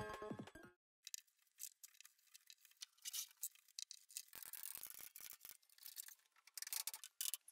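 Background music stops within the first second. Then faint scattered clicks and light knocks follow, with two clusters of sharper knocks in the second half, as pieces of a pine frame are handled and fitted on a workbench.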